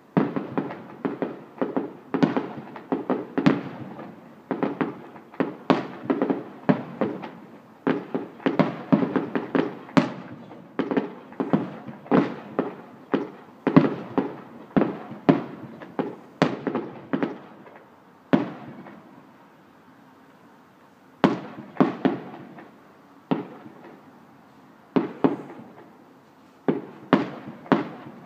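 Aerial fireworks shells bursting in quick succession: dozens of sharp bangs, each trailing off, with a gap of a few seconds about two-thirds of the way through before the bangs resume.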